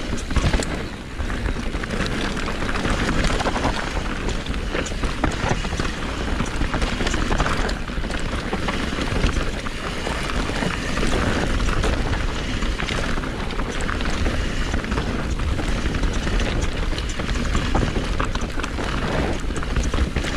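Enduro mountain bike riding down a trail, heard from a camera on the rider: steady wind rumble on the microphone with tyre noise over dirt and rocks, and frequent short clicks and rattles of the bike.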